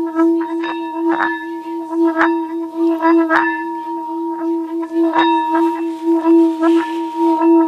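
Brass singing bowl filled with water, played around its rim so it sings one steady low tone with higher overtones, the tone pulsing several times a second. Irregular short clicks run through it.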